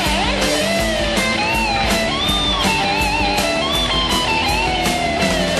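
Rock music: an electric guitar plays a bending lead melody over a steady drum beat.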